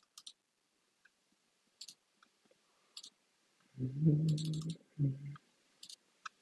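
Scattered computer keyboard and mouse clicks while a word is being looked up. About four seconds in, a man hums briefly twice, the loudest sound.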